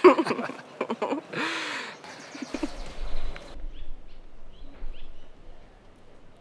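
Outdoor bird ambience. The first two seconds or so hold louder, bending calls or voices; then a few short, high bird chirps sound over a low, steady outdoor rumble.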